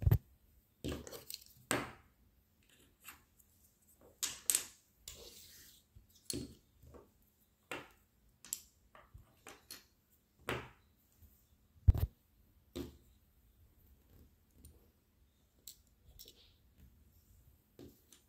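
Plastic Lego bricks being handled and set down on a wooden tabletop: scattered, irregular clicks and clacks, the loudest a knock about twelve seconds in.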